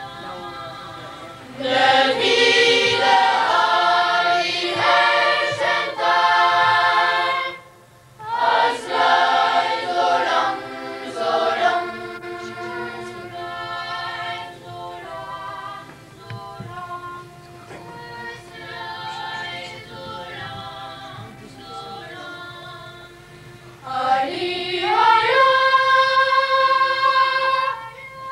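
Boys' choir singing a cappella. Two loud full passages come in the first half, then a softer stretch, then the voices glide upward into a loud held chord that breaks off near the end.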